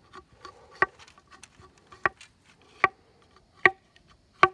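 Knife blade striking into a length of bamboo as it is split into weaving strips: five sharp knocks, each ringing briefly, about one a second, with lighter ticks and scraping between them.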